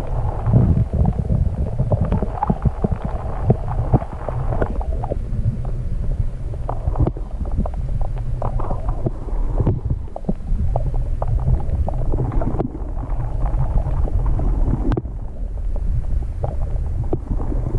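Muffled water sound picked up by a camera held underwater: a loud, steady low rumble with many small knocks and clicks scattered through it.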